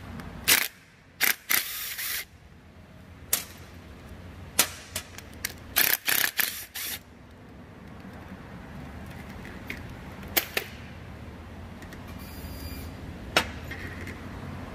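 Sharp metal clicks and knocks of tools and parts being worked on, coming in irregular clusters that thin out after about seven seconds, over a steady low hum.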